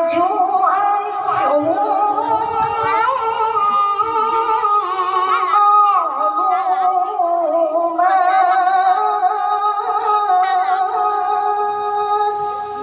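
A boy's voice reciting the Quran in the melodic tilawah style, amplified through a microphone: long drawn-out held notes with wavering, ornamented bends in pitch.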